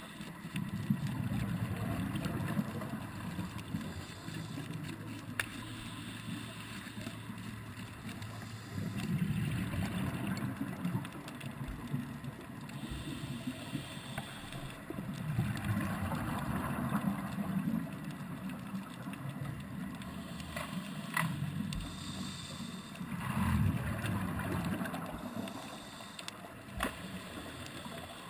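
Underwater sound of a scuba diver breathing through a regulator: exhaled bubbles rumble in surges about every six or seven seconds over a steady hiss, with a few sharp clicks in between.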